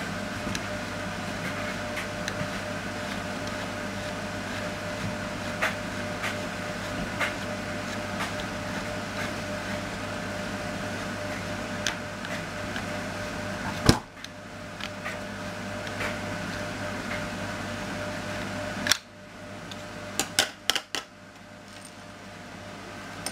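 Light clicks and knocks of hands working the plastic cheek piece up off an air rifle's stock over a steady background hum, with one sharp click about 14 seconds in. Near the end come a few quick clicks of small tools being handled on the worktop.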